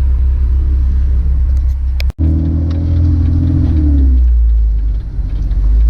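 Jeep engine pulling under acceleration on the road, its pitch climbing, with a short dip near five seconds like an automatic transmission upshift. A brief sharp cut-out in the sound about two seconds in.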